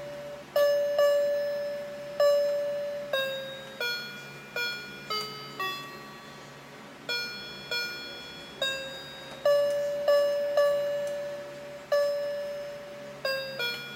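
Children's electronic toy piano playing a tune through its small speaker: a melody of separate notes, each starting sharply and fading. The sound is back because the speaker's permanent magnet, knocked loose when the toy was dropped, has been set back on its coil.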